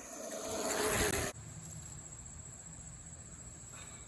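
A rush of noise that rises over about a second and cuts off abruptly, then a faint outdoor background with a steady high insect buzz.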